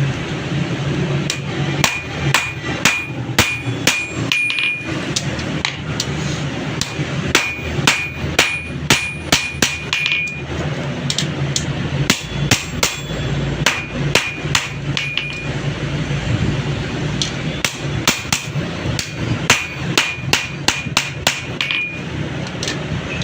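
Hammer blows on metal in quick runs of about two to three strikes a second, with short pauses between runs, many strikes ringing briefly. A low steady hum runs underneath.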